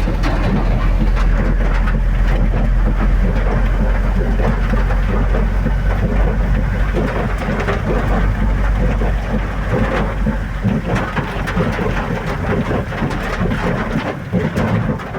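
Rain falling, with the steady low rumble of a moving vehicle under it; the rumble drops away near the end.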